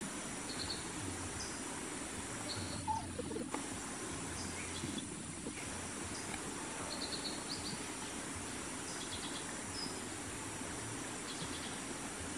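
Outdoor insect drone, a steady high hiss, with scattered short bird chirps every second or two and a brief soft knock about three seconds in.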